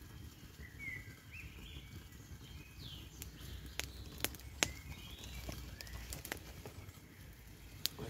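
Wood campfire crackling, with a handful of sharp snaps, the loudest about four and a half seconds in, over a low rumble. Small birds chirp briefly in the background during the first three seconds.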